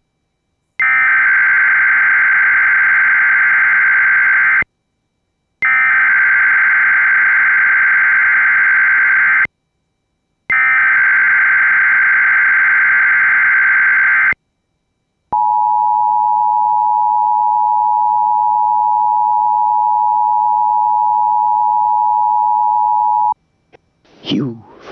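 Emergency Alert System tones: three long bursts of the SAME header data tones, a harsh buzzing warble with a second of silence between them, followed by the steady two-tone EAS attention signal (853 and 960 Hz sounding together) held for about eight seconds and cutting off abruptly.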